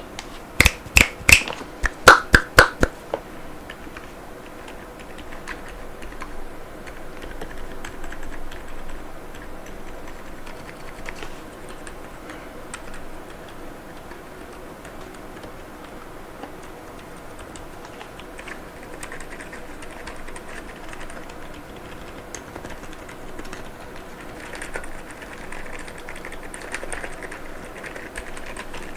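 Mechanical keyboard with Gazzew Boba U4 silent tactile switches and PBT keycaps, its keys pressed one after another in a key test. About ten loud, sharp clacks in the first three seconds, then a long run of quiet, muted key presses.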